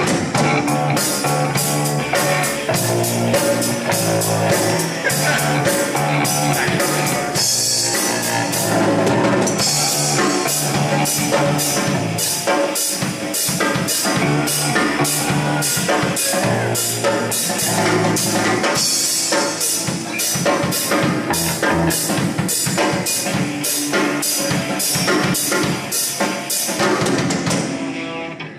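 Live rock band playing: drum kit with a steady run of cymbal hits, guitar and bass together. The music dies away near the end.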